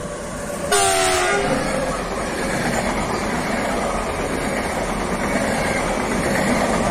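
Electric freight locomotive giving one horn blast of about a second, several tones together falling in pitch as it passes close. It is followed by the steady rumble and clatter of covered freight wagons rolling by.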